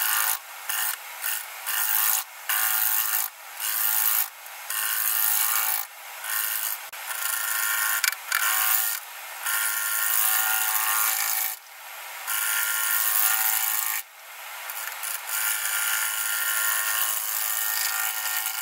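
Bowl gouge taking a roughing cut into a spalted beech bowl blank spinning on a wood lathe: a rasping, scraping sound of wood being cut away. It comes in short, rapid passes at first and in longer, continuous cuts later.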